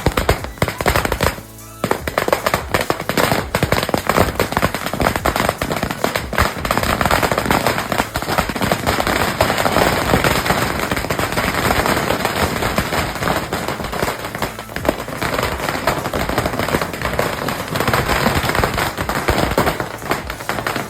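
A 5000-wala firecracker string going off, a dense, rapid, unbroken chain of bangs.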